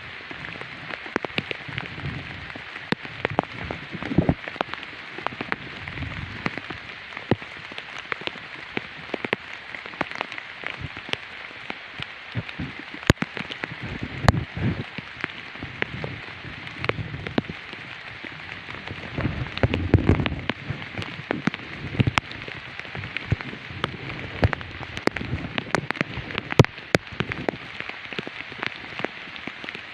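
Rain pattering steadily, with many small drop ticks and dull low thumps here and there.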